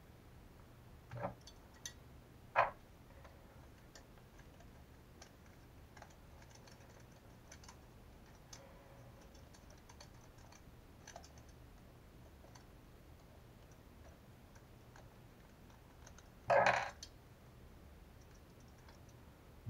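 Small parts of a Traxxas Revo 3.3 shock being handled by hand at a workbench: scattered light clicks and taps, with two sharper clicks in the first few seconds and a louder clatter lasting about half a second around sixteen and a half seconds in.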